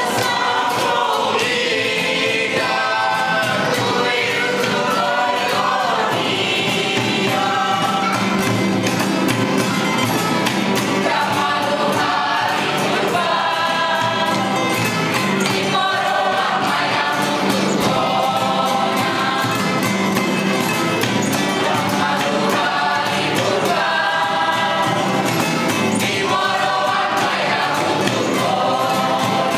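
A choir singing together from song sheets, accompanied by acoustic guitars.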